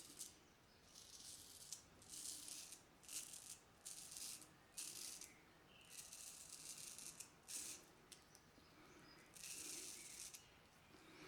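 Filarmonica 4/8 straight razor scraping through lathered facial stubble in a run of short, faint strokes, about ten in all with pauses between: the first pass of a wet shave.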